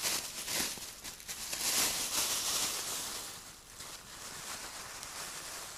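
Clear plastic bag crinkling and rustling as it is handled, loudest in the first three seconds and quieter after.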